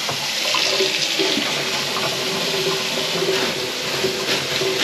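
Kitchen tap running steadily into a stainless steel sink and down the drain. This tests the drain line after a grease clog has been cleared.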